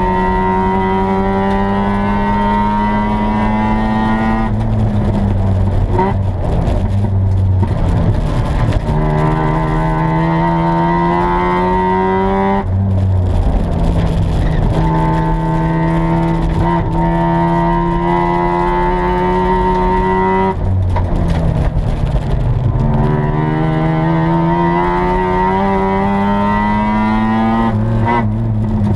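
1986 Mazda RX-7's rotary engine under load, heard from inside the cabin while lapping a race track. The revs climb steadily and then drop sharply about four times, as the driver lifts off and changes gear.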